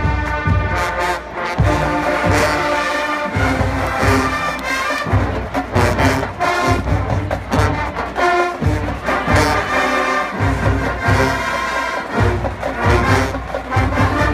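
Marching band playing: loud brass chords from trumpets, trombones and sousaphones over regular bass drum beats.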